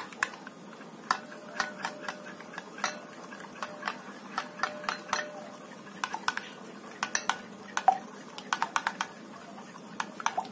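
A metal spoon stirs a creamy batter in a glass bowl, clinking and scraping against the glass in loose, irregular clusters of taps.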